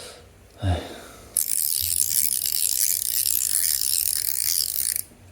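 Stainless steel Showhand fidget toy's mechanism clicking rapidly, like a ratchet, from about a second and a half in for about three and a half seconds. There is a short low sound just before it.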